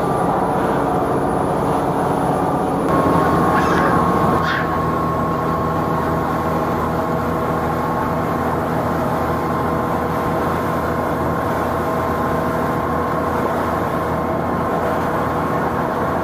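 Tour boat's engine running steadily, a hum of several steady tones over a churning rumble. It is briefly louder about three seconds in, and the tones shift in pitch.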